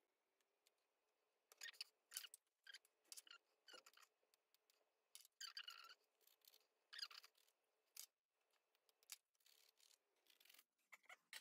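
Small child's craft scissors snipping through a plastic zip: repeated short crunching cuts in several clusters with pauses between, the blades working hard to get through the zip.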